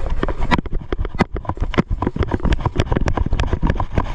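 Airsoft guns firing, a rapid, irregular string of sharp snaps about eight a second, over a steady low rumble of wind and handling noise on the microphone.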